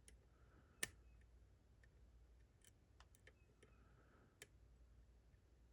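Faint, scattered clicks of a lock pick working the pins inside a Ruko Combi 2 lock. A sharper click comes just under a second in and another near the end, with a few fainter ticks between them.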